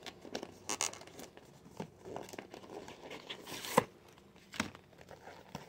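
Paper and thin cardboard packaging being handled and unfolded, rustling and crinkling in short irregular bursts, the loudest a little under four seconds in.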